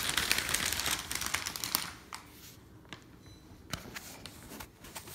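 Brown paper bag rustling and crinkling as a hand is worked inside it, loudest over the first couple of seconds, then a few fainter rustles and clicks.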